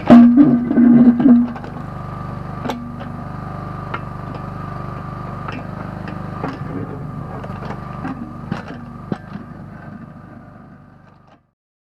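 Engine of a Kellfri ATV backhoe running steadily while digging, with a loud surge under load in the first second and a half. Scattered knocks and clanks follow, and the sound fades out near the end.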